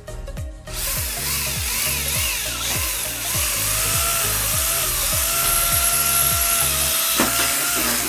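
Electric drill boring into the sheet metal of a perforated metal cable tray, starting under a second in. Its motor whine wavers and dips under load, then holds steady, over background music with a steady beat.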